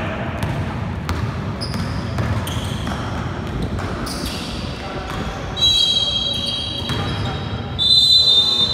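Basketball game play on an indoor wooden court: a ball bouncing and players' shoes on the floor, with knocks throughout. A shrill high-pitched tone sounds twice in the second half, the second one louder and longer, running on near the end.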